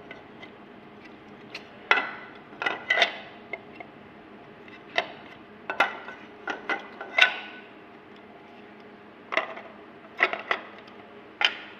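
Irregular sharp clicks and clacks of hard plastic parts and fixture being handled at an ultrasonic plastic welding machine, about a dozen knocks, some ringing briefly, over a steady hum.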